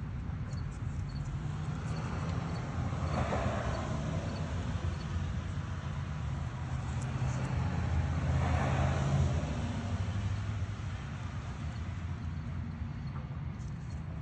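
Road traffic: a steady low rumble, with two vehicles passing that swell and fade, about three and about nine seconds in.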